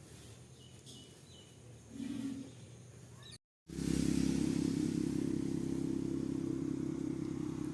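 An engine running steadily at an even pitch, starting abruptly about three and a half seconds in after a brief dropout in the audio. Before that, quiet background with one short low sound about two seconds in.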